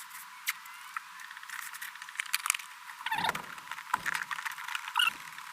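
Masking tape being peeled off the roll, torn and pressed onto a panel: a crackling, irregular run of small sharp clicks and rustles.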